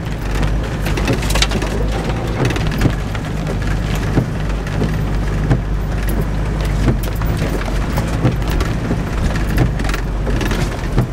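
Rain hitting the roof and windscreen of a 4WD, heard from inside the cabin as a dense, irregular scatter of sharp ticks over the steady low hum of its engine as it drives slowly along a muddy bush track.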